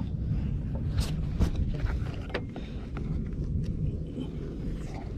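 Low rumble of wind on the microphone with scattered clicks and scrapes from a hand tool working a rubber lock strip into a truck windshield gasket.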